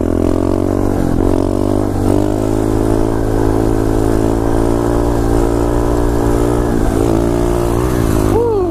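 2015 SSR 125cc pit bike's single-cylinder four-stroke engine held at steady revs through a wheelie. Its pitch dips and rises briefly near the end.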